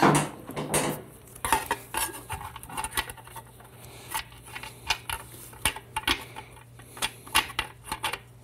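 A TH400 transmission's front band clinking and scraping against the aluminium case as it is worked onto its anchor pin by hand: irregular metallic clinks and rattles, the loudest right at the start.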